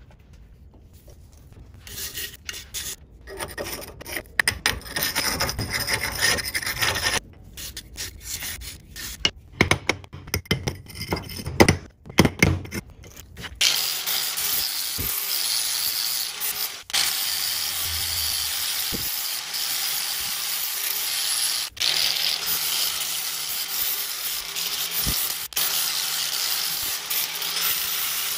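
Irregular scraping and rubbing strokes on a rusty hatchet head as it is handled and set in a bench vise. About halfway through, an angle grinder with a flap disc starts running steadily against the steel head, grinding off rust, and dips briefly a few times.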